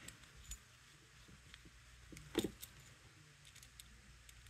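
Small screwdriver tightening the cable-clamp screw on a metal 4-pin CB microphone plug: faint metal scrapes and light clicks, with one louder knock about halfway through.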